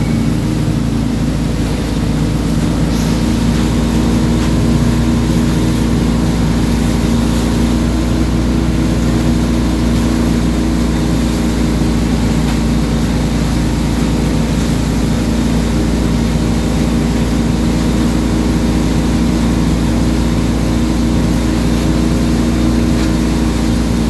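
Wake boat's inboard engine running steadily under way, a constant low hum over the rush and churn of the wake water behind the boat.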